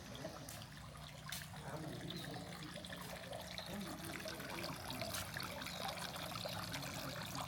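Water trickling steadily, slowly growing louder.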